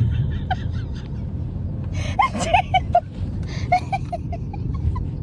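Steady low road and engine rumble inside a moving car's cabin, with short bursts of voices and giggling about two seconds in and again near four seconds.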